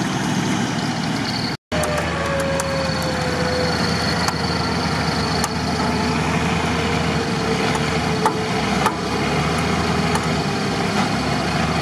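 Off-road vehicle engine idling steadily under a winch pull, with a thin whine that slowly falls in pitch as the cable takes the load. There is a brief dropout to silence about two seconds in.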